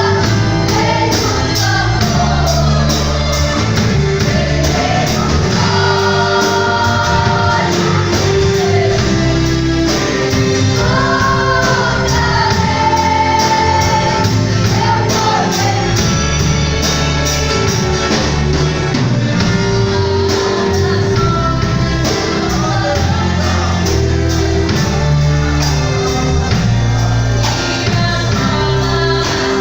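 Church youth choir singing a gospel song with band accompaniment over a steady drum beat.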